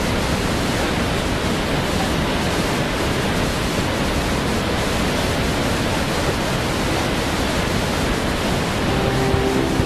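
Steady rushing of a large river waterfall, the Teotônio rapids on the Madeira River. Guitar music fades in near the end.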